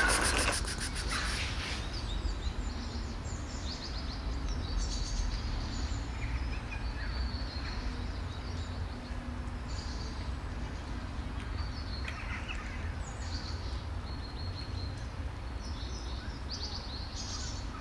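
Small birds chirping in short, scattered calls over a steady low outdoor rumble, with a brief rustling clatter at the start.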